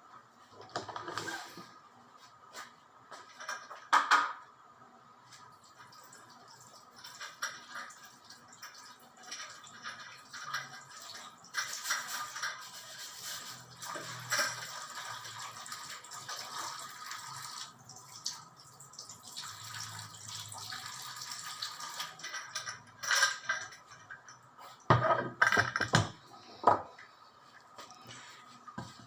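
Water running from a tap and splashing in a sink for about ten seconds in the middle, with scattered knocks and clatters of things being handled, loudest near the end.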